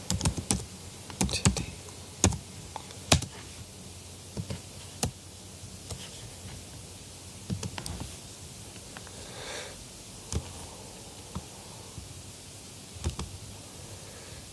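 Computer keyboard keystrokes and clicks, irregular and sparse: a few quick clusters of keys in the first few seconds, then single clicks spaced out.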